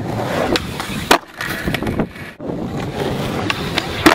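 Skateboard wheels rolling on concrete, with a sharp clack of the board about a second in and another near the end.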